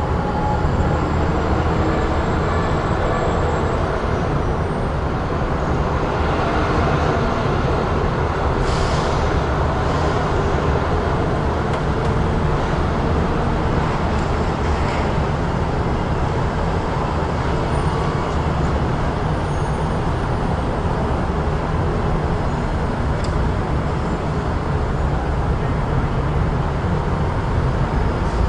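Busy city street traffic: a steady rumble of passing vehicles, with a short hiss about nine seconds in.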